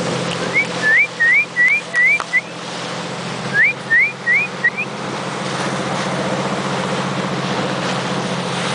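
A boat's engine runs steadily under two runs of short, sharp rising whistles close by. There are about six quick whistles in the first two seconds, then four more a second later, the kind a person on board whistles to call the dolphins.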